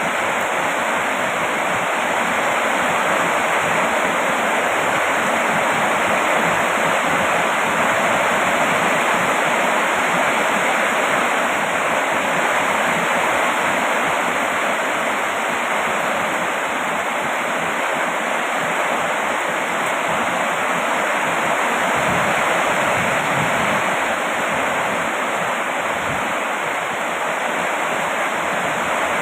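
Heavy rain falling steadily, a dense, even hiss with no distinct drops or breaks.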